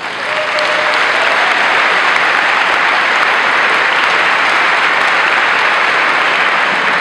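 Large audience applauding: dense, steady clapping that swells in at once and eases slightly near the end.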